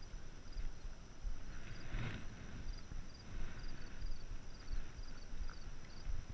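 Wind rumbling on a GoPro's microphone, with uneven low bumps from the camera being handled. Faint high ticks come in small groups throughout.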